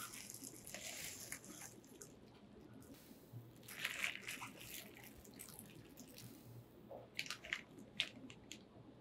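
Bubble wrap and plastic packaging crinkling and crackling as hands lift it out of a cardboard box and handle it. It comes in spells, loudest about four seconds in and again around seven to eight seconds.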